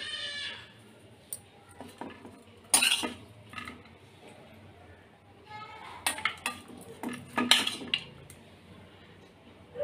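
Metal kitchen utensils clinking and knocking against dishes: a few sharp clinks about three seconds in and a cluster between six and eight seconds in, with a short high whine at the very start.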